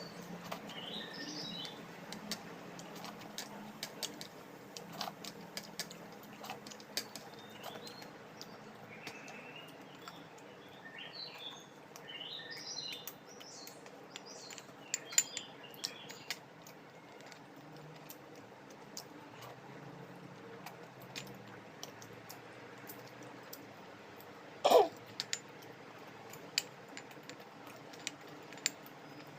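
Close-up eating sounds: scattered clicks and taps of utensils on a plate, with chewing and smacking, and one louder ringing clink near the end.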